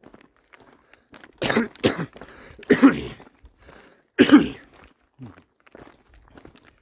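A man coughing hard in three bouts over about three seconds, the first a double cough, with the faint crunch of his footsteps on a gravel track in between. He puts the cough down to his lungs still getting used to the colder weather.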